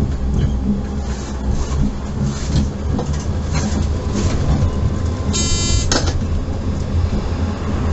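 Tram running along its rails, heard from the driver's cab: a steady low rumble with occasional short clicks and hisses from the wheels on the track. Just over five seconds in a brief buzzing tone sounds, cut off by a click.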